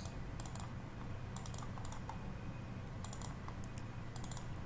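Quick computer keyboard and mouse clicks, coming in small clusters every second or so, over a low steady hum.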